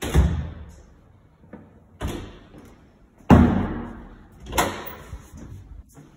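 White double closet doors being opened and shut, giving four sharp door bangs about a second or so apart; the third is the loudest.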